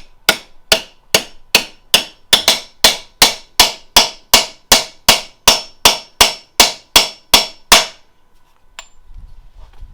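Hammer tapping steadily, about twenty sharp blows at two to three a second, driving a part into a BMW's ZF automatic transmission; the blows stop about eight seconds in.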